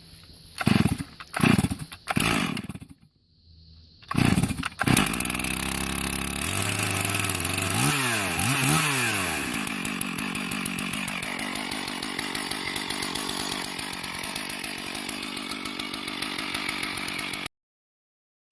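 Gas chainsaw being started: a few short pulls on the starter cord, then the engine catches and runs. It is revved up and down twice, then runs steadily until the sound cuts off abruptly near the end.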